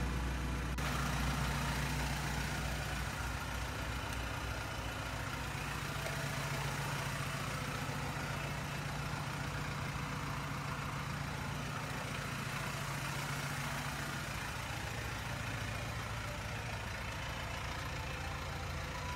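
BMW E90 320i's four-cylinder engine idling steadily, a low even hum.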